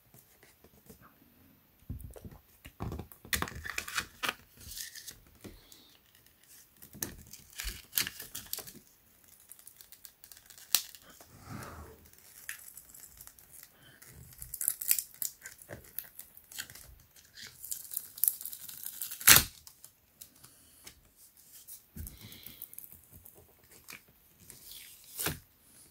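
Adhesive tape being peeled and torn off a plastic jug to free a taped-on instruction booklet, in uneven rasping pulls with crinkling of its plastic sleeve. One sharp rip about three-quarters of the way through is the loudest.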